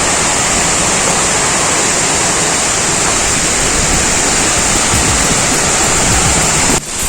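Waterfall rushing, a loud, even noise of falling water close by; it dips out for a moment near the end.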